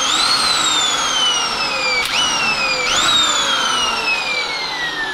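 Corded INGCO electric impact wrench run free in the air, its motor whine shooting up in pitch each time the trigger is squeezed and then sagging slowly, about four times, ending in a long winding down.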